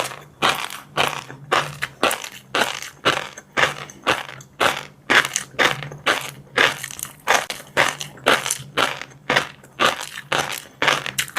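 Close-miked chewing of crunchy food, a steady run of sharp crunches about two to three a second, as in seafood ASMR eating.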